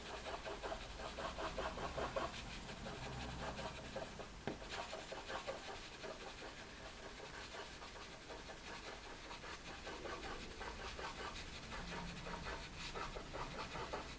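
Pastel pencil scratching over canvas-textured cotton pastel paper in quick, short scribbling strokes as the point is worked around in small movements, a soft continuous rasp.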